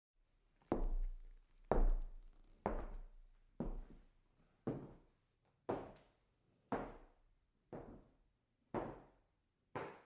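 Footsteps clacking on a wooden floor, heard from a distance: ten slow, even steps about a second apart, each with a short echoing tail, growing fainter after the first two or three.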